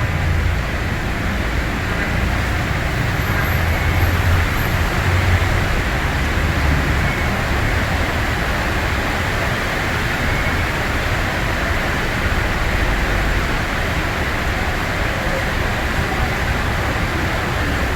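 Heavy rain falling steadily over a busy city street, a dense even hiss, with the low rumble of road traffic beneath it.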